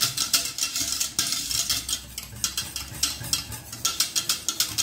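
Wire whisk beating creamy soup in a stainless steel saucepan: quick, repeated clinking and scraping of the wires against the pot.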